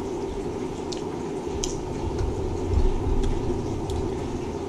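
Chewing and crunching of crispy butter-fried kale chips, with a few sharp crackles, over a steady low hum.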